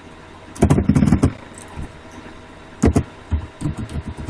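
Computer keyboard typing and backspacing in irregular bursts of key clicks, over a steady low hum from the recording computer.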